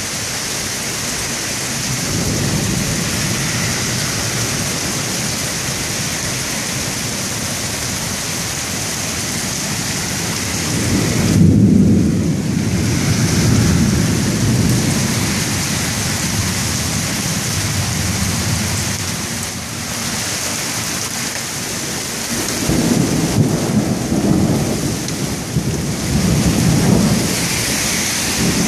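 Heavy thunderstorm rain pouring steadily, with low rolls of thunder rumbling in swells, loudest about a third of the way in and again several times near the end.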